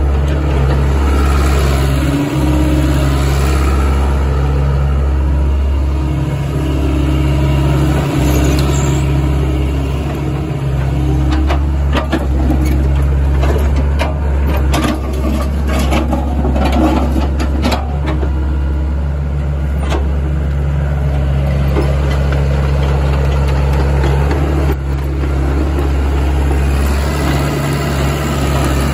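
SANY SY75C-9 crawler excavator's diesel engine running steadily with a deep hum while the machine travels on its steel tracks. A run of clicks and knocks in the middle comes from the tracks moving over rubble.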